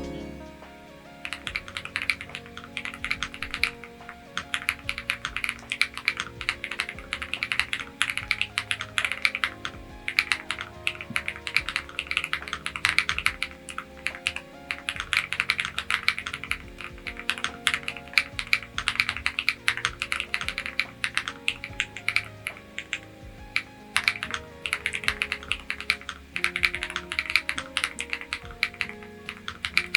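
Fast, continuous typing on a Bridge 75 mechanical keyboard, the key clicks starting about a second in, over soft background music.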